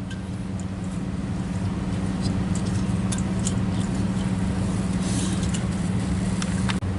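A steady low mechanical hum with a few faint, light clicks.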